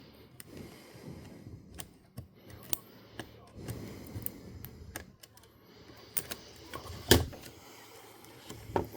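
Small, irregular clicks and taps of plastic and metal parts being handled while a Sony MiniDisc MZ-R3 portable recorder is taken apart, with rustling between them and a sharper click about seven seconds in.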